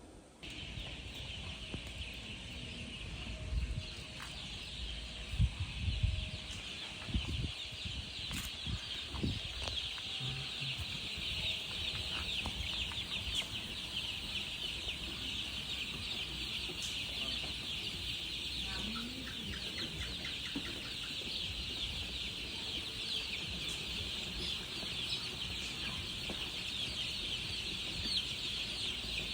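A brood of baby chicks peeping together, many high chirps overlapping in a continuous chorus, with a few low knocks in the first ten seconds.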